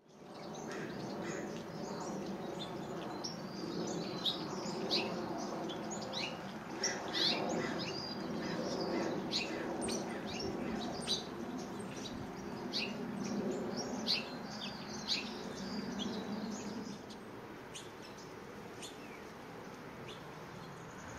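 Lesser goldfinches giving many short, high chirping calls in quick irregular series, over a steady low background rumble.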